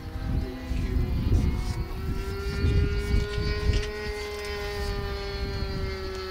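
The steady whine of a radio-controlled model aircraft engine, its pitch rising slightly and then slowly falling, over wind rumbling on the microphone and a few light clicks.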